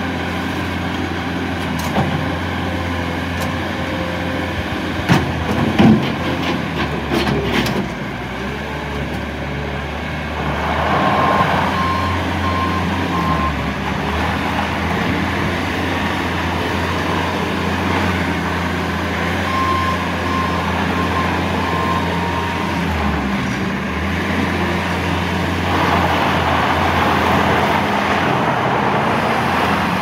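2014 Bobcat S530 skid steer loader's 2.4-litre four-cylinder diesel running steadily as the loader works its bucket and drives on gravel. A few knocks come about five to eight seconds in. The backup alarm beeps in two short runs, the second about twenty seconds in.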